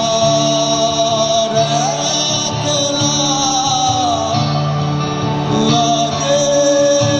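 A live rock band playing a song: a voice singing long, gliding notes over guitar and the rest of the band, loud and steady.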